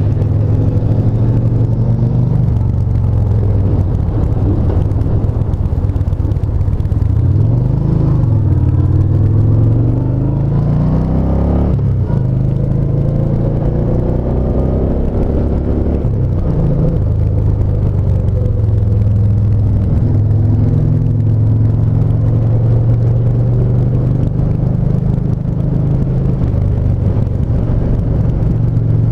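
Yamaha SCR950's air-cooled 942 cc V-twin running at a steady cruise. In the middle the engine pitch climbs, drops abruptly about twelve seconds in, then settles back to a steady note.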